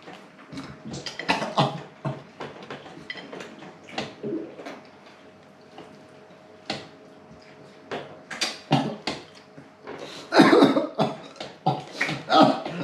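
A person eating, close to the microphone: irregular chewing and mouth clicks as bites are taken. About ten seconds in and again near the end come loud, throaty bursts like coughing.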